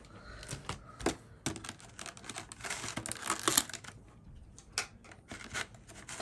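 Plastic and foil packaging crinkling and crackling as it is handled: irregular sharp crackles and clicks, busiest a little past the middle.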